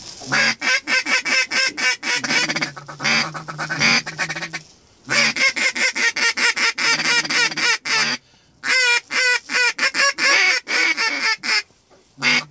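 Hand-blown waterfowl call worked in fast chattering runs of short notes, about eight to ten a second, in three long runs with brief pauses between them.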